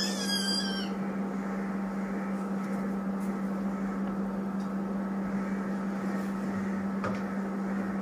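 Steady low electrical hum, like a fan or appliance running, with a brief high gliding cry in the first second and a faint tap near the end.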